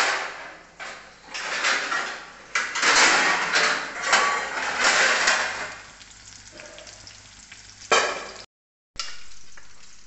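Chopped green garlic sizzling in hot oil in a wok, swelling loudly again and again through the first six seconds, then settling to a quieter sizzle.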